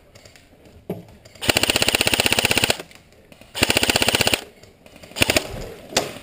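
Airsoft electric rifle firing two full-auto bursts of rapid clicking shots, the first about a second long and the second shorter. A few short single clicks follow near the end.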